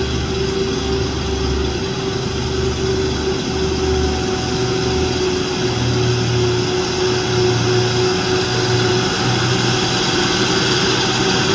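Engine of an old, heavily loaded Bedford truck running steadily as it climbs toward the microphone, a deep pulsing note with a steady whine above it. The deep note shifts higher about halfway through.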